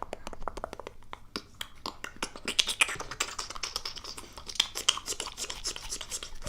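Rapid, irregular light tapping and scratching clicks, getting busier and brighter about two and a half seconds in.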